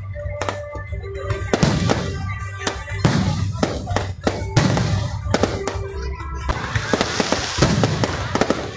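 Aerial fireworks shells bursting in quick succession, with repeated sharp bangs and music playing underneath. Near the end the bursts thicken into a dense crackling barrage.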